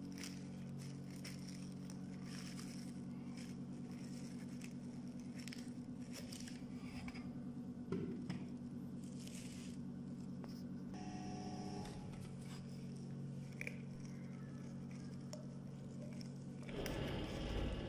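Handling noise from a cut-out plywood lampshade being turned in the hands: faint scrapes, rustles and light clicks, with a knock about eight seconds in and a louder rustle near the end, over a steady low hum.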